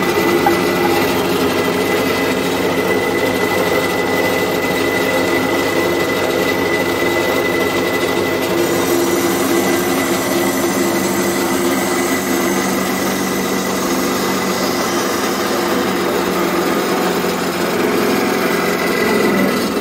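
Pillar drill press running steadily while bamboo pieces are held up to its bit: a constant motor hum with a thin high whine that fades about halfway through.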